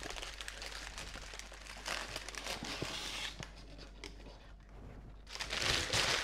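Paper food wrapper crinkling and rustling as it is pulled off a fried chicken sandwich and scrunched up by hand, louder near the end.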